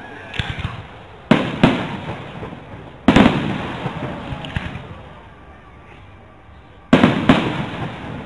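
Aerial firework shells bursting overhead: three loud bangs, about a second in, about three seconds in and near the end. Each is quickly followed by a second report and trails off in an echoing rumble, with a couple of fainter pops between them.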